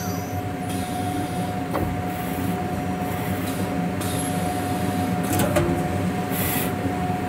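CNC router with a linear automatic tool changer moving its spindle head along the gantry to the tool rack, over a steady machine hum with a constant tone. There are a couple of sharp clicks, and a short hiss comes near the end.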